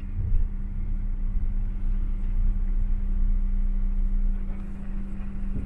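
Van engine running, heard from inside the cab: a steady low rumble with an even hum, cutting off suddenly near the end.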